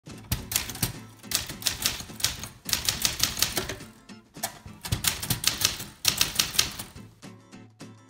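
1947 Smith Corona Sterling manual typewriter being typed on: the typebars strike the platen in quick runs of several keystrokes a second, with short pauses between runs.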